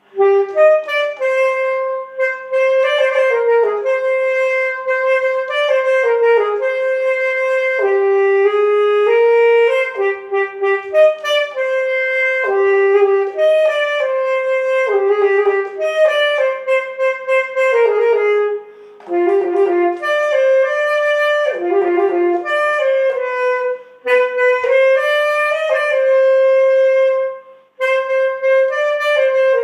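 A solo wind instrument playing a melody, one note at a time, with long held notes and quick runs between them. Its brief pauses come about two-thirds of the way through and near the end.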